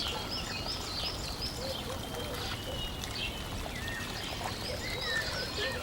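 Many short, quick chirps of small birds over a steady rush of running water.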